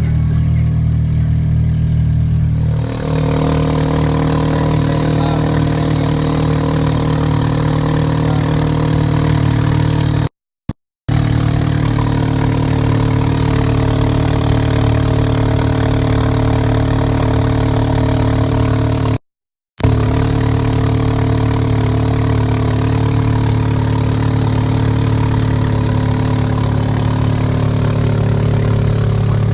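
2004 Honda Civic EX's 1.7-litre four-cylinder engine idling steadily, loud and raspy through aftermarket headers and a test pipe in place of the catalytic converter. The sound cuts out briefly twice.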